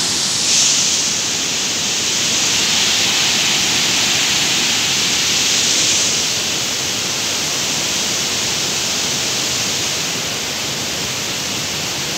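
Steady rushing of floodwater pouring through the open gates of a river barrage and churning below them.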